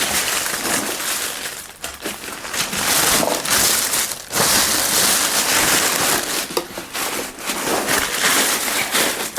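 Packaging rustling and crinkling as a unit is unwrapped and lifted out: a loud, irregular rustle with short pauses.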